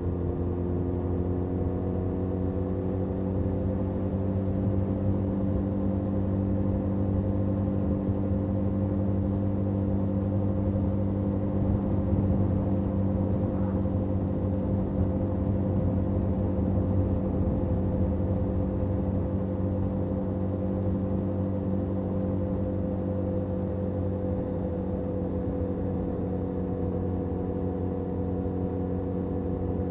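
Benelli 502C's 500 cc parallel-twin engine on its stock exhaust, heard from the rider's seat while cruising at a steady road speed. The engine note rises a little in the first couple of seconds, then holds steady and eases slightly near the end.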